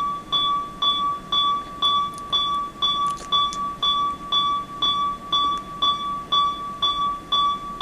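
Electronic beeping from hospital medical equipment: a continuous high tone with short pulses repeating about twice a second, in a steady pattern.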